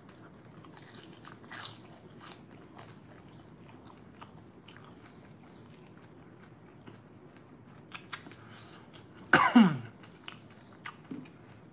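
Mouth chewing a bite of crisp deep-fried food, with faint crunches and wet mouth sounds. A little after nine seconds in comes one loud, short vocal sound that falls in pitch.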